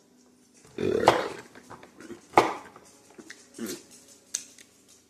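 Close-miked eating sounds of a person eating baby back pork ribs: a few separate loud smacking and sucking noises, the loudest about a second in, another sharp one about two and a half seconds in.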